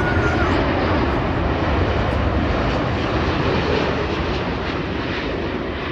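Jet airliner's engines running as it passes, a loud steady roar that slowly eases off.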